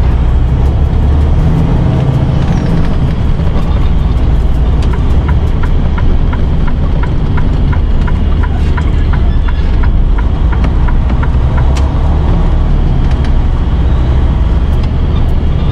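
Diesel engine of a Freightliner Cascadia semi-truck running, heard from inside the cab as a steady low drone while the truck drives slowly and turns. Through the middle, a turn signal ticks at an even pace of about three clicks a second.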